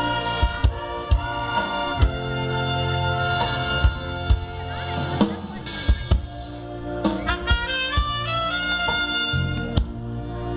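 Live band music from a brass-led orchestra: horns such as trumpets hold chords over drum-kit hits. A quick run of stepping higher notes comes in near the end.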